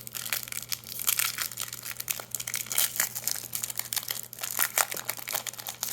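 Foil booster-pack wrapper crinkling and crackling as it is handled and pulled open, with many irregular sharp crackles.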